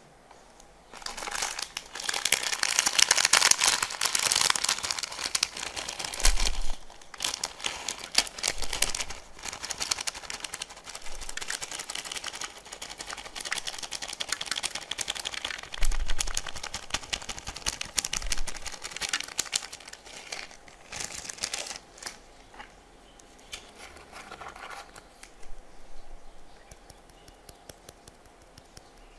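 Many small plastic fuse beads rattling and clicking as they are poured out and scatter onto a plastic tray of slime, in a dense run that starts about a second in and dies away after about 22 seconds, with a last fainter spell a few seconds later.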